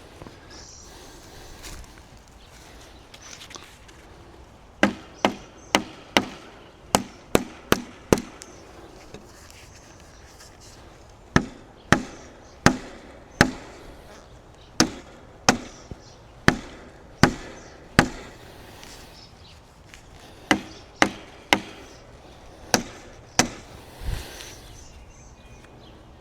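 A hammer striking wood, as in building a small stake-and-crosspiece cage, in three runs of sharp strikes with pauses of a few seconds between them.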